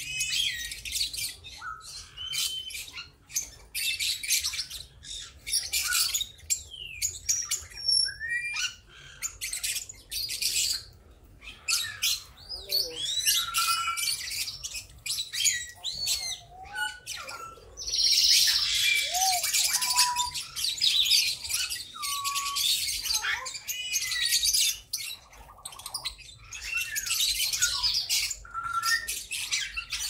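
A flock of small caged parrots chattering and chirping continuously: dense high twittering with scattered short whistled calls, busiest about two-thirds of the way through.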